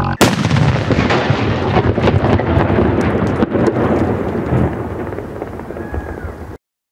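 A sudden loud bang, then several seconds of dense crackling rumble that slowly fades before cutting off abruptly.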